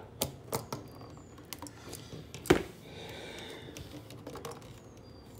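Light, scattered clicks and taps from handling a screwdriver, an electrical receptacle and its stiff aluminum wires at the screw terminals, with one sharper click about two and a half seconds in.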